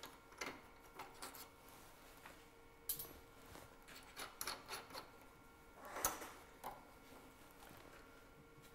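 Faint handling sounds as a steel thread tap is fitted for tapping the wood on the lathe: scattered light clicks and knocks, with a short rub about six seconds in, over a faint steady hum.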